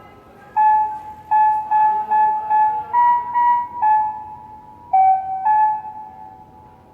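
Municipal disaster-prevention outdoor loudspeaker playing the 5 p.m. evening chime: the last phrase of the melody in clear, bell-like keyboard notes, about a dozen of them, ending on a held note that fades out.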